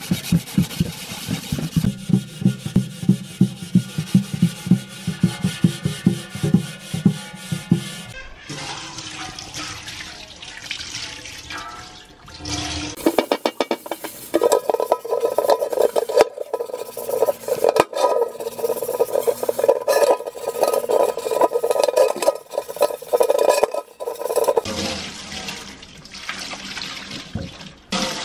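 Rhythmic scrubbing strokes of a scouring pad over the soapy outside of a large metal rice-cooker pot. Near the end comes the splash of water poured over the pot to rinse it.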